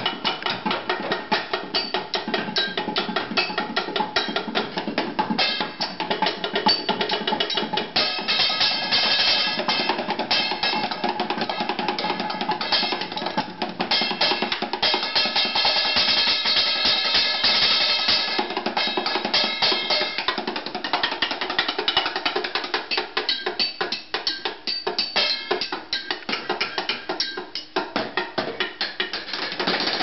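Drumsticks beating a fast, continuous drum solo on an open refrigerator's shelves and door, with metallic ringing through the middle of the solo.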